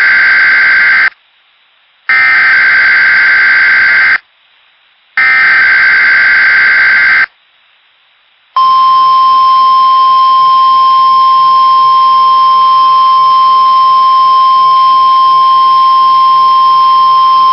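Weatheradio Canada SAME (Specific Area Message Encoding) header: three data bursts, each about two seconds long with a second's pause between them. About eight and a half seconds in, the steady single-pitch 1050 Hz Weatheradio alert tone starts and holds, marking the start of a required monthly test alert.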